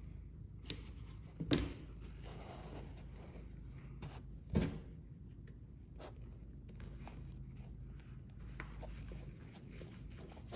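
Handling noise from a canvas and leather tool bag: a few soft knocks, the loudest about four and a half seconds in, among light rustles and clicks, over a steady low room hum.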